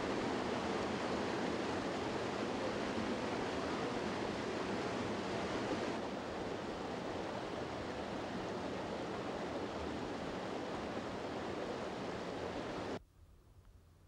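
Waterfall: steady rushing water, slightly quieter after about six seconds, cutting off suddenly about a second before the end.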